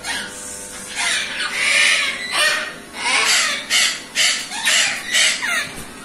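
Caged parrots giving a rapid run of harsh, screeching squawks, about two a second, with one longer scream in the first two seconds.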